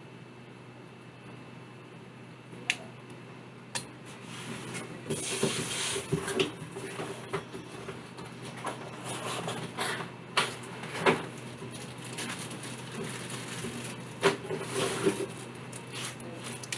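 Hands working on an open laptop: a string of sharp plastic-and-metal clicks and irregular scraping and handling noises, over a steady low hum.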